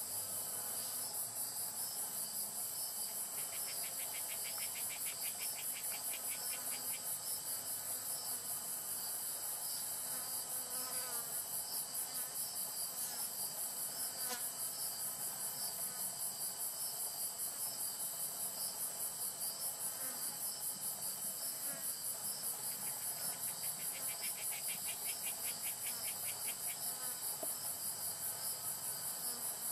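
A chorus of singing insects, a high steady trill pulsing evenly, with a faster ticking trill joining twice for a few seconds.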